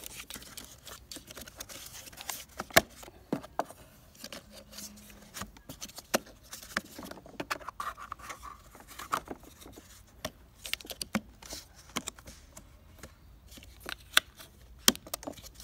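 Hard plastic clicking, ticking and scraping as the black plastic cover on a Bosch Rotak lawnmower's electric motor is worked loose by hand. The clicks come irregularly, with a few sharper snaps about three seconds in and twice near the end.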